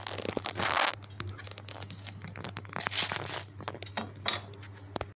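Fresh spinach leaves being handled and torn in a steel bowl: crisp rustling, crinkling and quick snapping, with the loudest burst of rustling about a second in.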